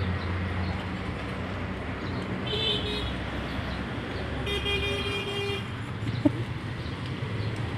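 A road vehicle's horn toots twice over engine and traffic noise: a short toot about two and a half seconds in, then a longer one lasting about a second.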